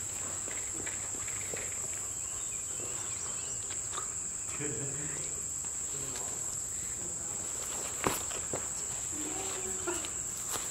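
Insects droning in one steady, high-pitched band, with faint distant voices and a single sharp click about eight seconds in.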